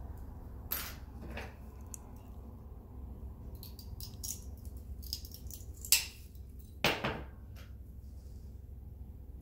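Mosaic tile nippers snapping small tesserae: several sharp cracks, the loudest about six and seven seconds in, with lighter clicks between.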